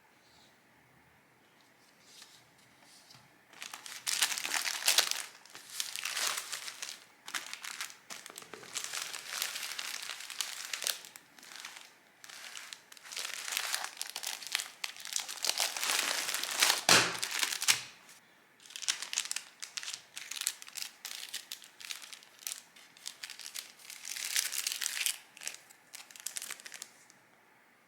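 Packaging being crinkled by hand as it is unwrapped, in irregular bursts starting about four seconds in, with one sharper, louder crackle a little past the middle.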